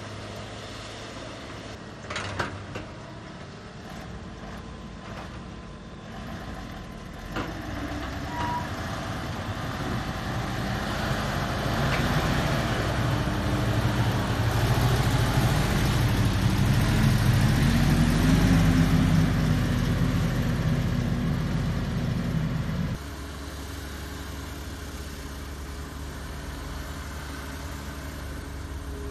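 Diesel engine of a loaded Hino dump truck pulling away and driving past close by, growing louder over about fifteen seconds as its pitch rises and falls. It then cuts off abruptly to a quieter, steady engine running, with a couple of knocks in the first few seconds.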